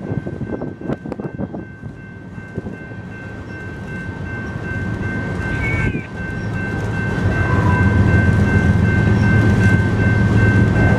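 Covered hopper cars of a BNSF grain train rolling past. The wheels click over the rail joints, then settle into a low rumble that grows louder from about seven seconds in, with a steady high-pitched tone under it.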